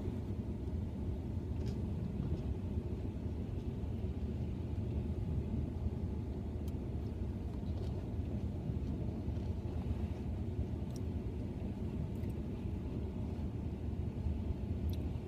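Steady low rumble inside a parked car's cabin, with a few faint, sharp clicks scattered through it.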